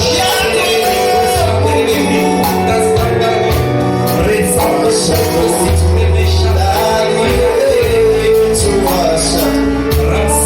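Church worship music with singing, over a bass line and percussion.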